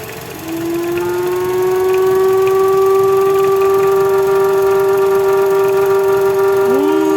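Vauxhall Corsa engine giving a loud cow-like moan: a steady hooting tone with overtones that starts about half a second in and holds, with a second tone gliding in near the end. The moan is the noise that points to the engine's PCV (crankcase breather) valve.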